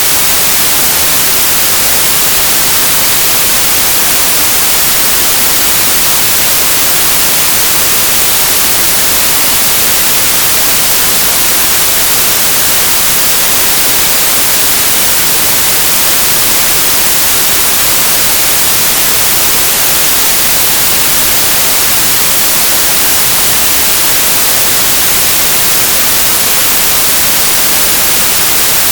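Synthesized stereo white noise: a steady, bright hiss with a flat spectrum and no changes.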